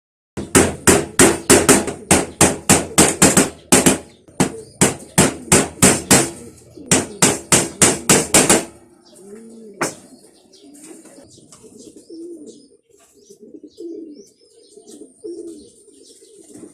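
Rapid hammer blows, about four a second in several quick runs, stopping about nine seconds in. Racing pigeons then coo, with one more knock.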